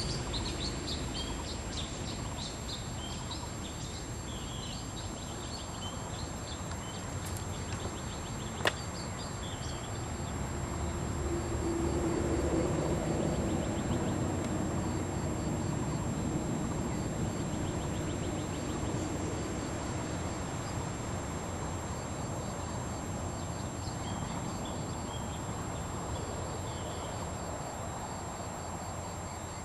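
Outdoor ambience: small birds chirping on and off over a steady background hiss. There is one sharp click about nine seconds in, and a low hum swells and fades again around the middle.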